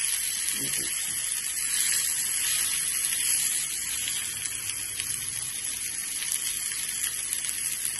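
Tomato rings sizzling as they shallow-fry in oil on a tawa, a steady high hiss.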